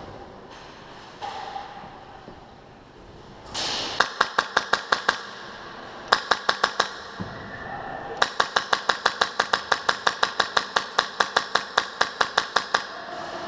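Airsoft gun firing rapid strings of shots at about seven a second: a short string about four seconds in, another about six seconds in, then a long string of some thirty shots that stops near the end.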